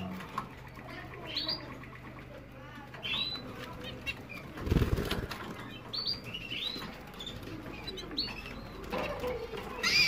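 Canary bathing in a shallow water dish: a loud burst of wing fluttering about five seconds in. Short rising canary chirps come several times.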